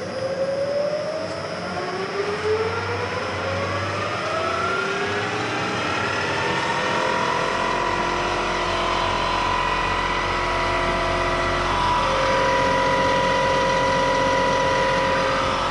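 Bridgeport Series 1 2 HP J-head milling machine running on its freshly rebuilt Vari-Speed drive as the spindle speed is cranked up with the speed-change handwheel: a whine rising in pitch over the first seven seconds or so, then running steadily at the higher speed. The drive now runs quietly after the noisy bearings and belt parts were sorted out.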